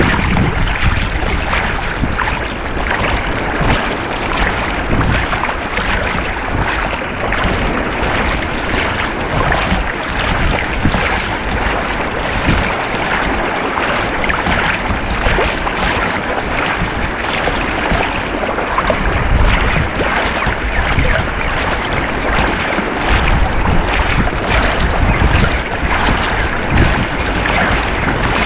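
Sea water sloshing and splashing right at the microphone as swimmers do front crawl through choppy water, with irregular slaps of arm strokes entering the water.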